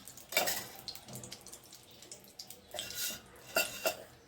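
Metal spoon scraping and clinking against a hot kadhai while a spoonful of ghee goes in: a scrape about half a second in, then two short clinks near the end.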